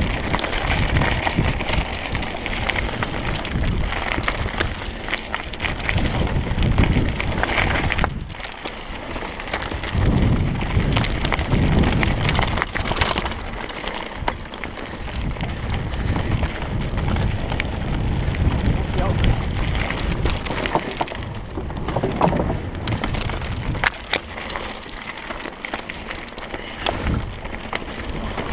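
Trek Remedy 9 mountain bike riding fast down a rocky gravel trail: tyres rolling over stones and the bike rattling, with many sharp clicks and knocks, and wind buffeting the microphone as a steady low rumble.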